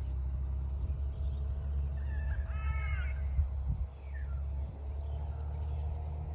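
A single drawn-out animal call, starting about two seconds in and lasting about a second, with a fainter short falling call a second later, over a steady low wind-like rumble.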